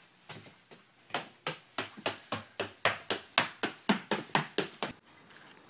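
Footsteps on a wooden floor inside a bus, about four quick steps a second, growing louder as the walkers come closer, then stopping suddenly near the end.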